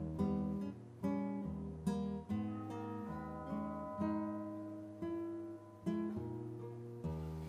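Soft instrumental soundtrack music on plucked acoustic guitar: unhurried notes and chords, each left to ring and fade before the next.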